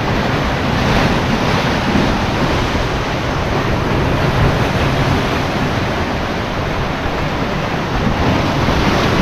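Sea surf breaking and washing over rocks, a steady loud rush of water, with wind buffeting the microphone.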